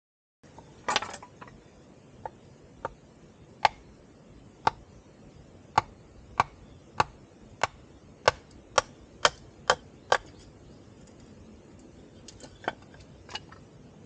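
Repeated chopping strikes: about fifteen sharp knocks, quickening from roughly one a second to about two a second and stopping about ten seconds in, followed by a few lighter taps near the end.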